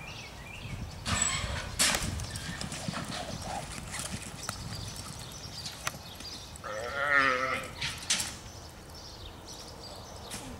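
A roped calf bawls once, a wavering cry of about a second, midway through. About a second in there is a loud clatter lasting about a second.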